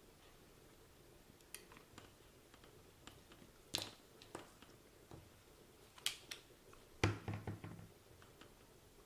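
Scattered light clicks and taps from small hand tools working on a plastic RC transmitter, with a quick cluster of several clicks about seven seconds in.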